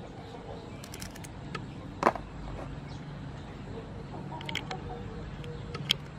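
Scissors snipping through river prawn shells and feelers: a few sharp clicks, the loudest about two seconds in and another near the end, over a steady low background hum.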